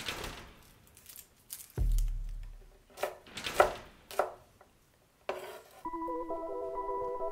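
Chef's knife on a wooden cutting board: a heavy thud about two seconds in, then three sharp chops through garlic cloves, a little over half a second apart, and a scrape as the chopped garlic is gathered onto the blade. Music comes in near the end.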